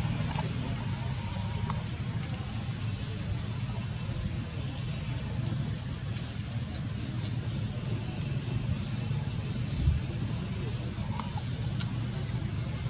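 Steady outdoor background rumble with a high hiss. Over it come a few faint clicks and crinkles as a long-tailed macaque chews at a plastic snack wrapper, and a single low thump about ten seconds in.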